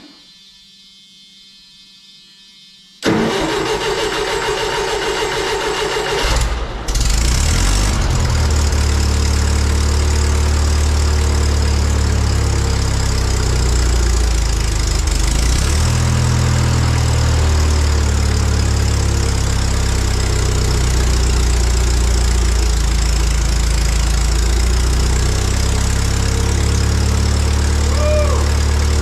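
Wisconsin V465D air-cooled V4 engine in a skid steer starting about three seconds in, running rough and stumbling briefly, then catching and running steadily from about seven seconds on.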